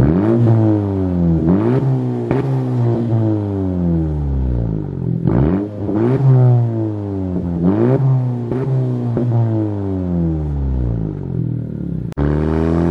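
Exhaust of a Honda Civic hatchback's turbocharged 1.5-litre four-cylinder, with its resonator and muffler deleted, being revved in place. It makes a quick series of short throttle blips, each rising sharply and falling back. Near the end it breaks off and settles into a steady held note.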